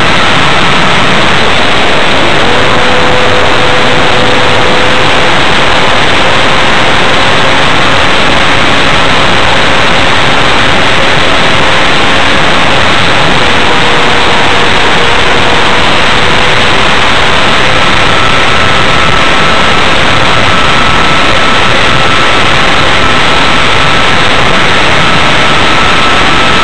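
Wind rushing over the onboard camera microphone of a small electric RC plane, a loud, steady roar, with the faint whine of its Turnigy brushless motor and propeller beneath it, shifting slightly in pitch now and then.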